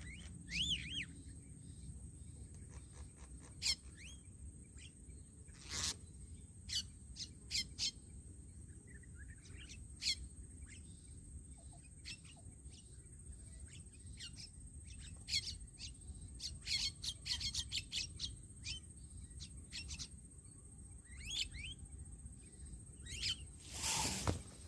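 Birds calling: scattered short chirps, clicks and whistled up-and-down notes, over a steady high-pitched whine. A brief, louder rustling burst comes near the end.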